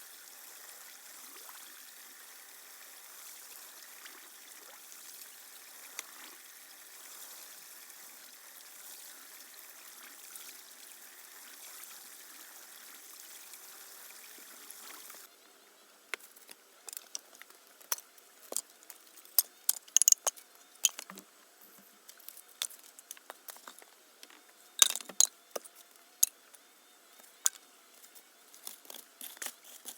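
Water trickling steadily. About halfway it cuts off abruptly, and scattered sharp clicks and knocks follow, some in quick clusters.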